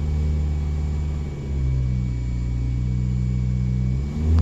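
Toyota Corolla S four-cylinder engine running with a steady low hum, which dips briefly and then rises in pitch and gets louder near the end as the engine revs up. The engine has an intermittent cylinder 4 misfire (code P0304) that comes and goes.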